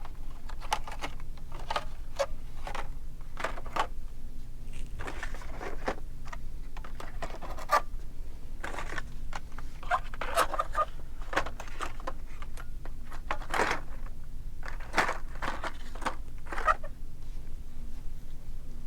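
Blister-packed die-cast toy cars being handled and rummaged through: irregular plastic-and-card clicks, clacks and scrapes over a steady low hum.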